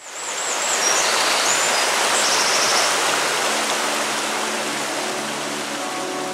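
Rushing river rapids fading in as a steady wash of water noise, with high chirps and a short trill during the first three seconds. Soft, sustained music tones come in under the water about halfway through.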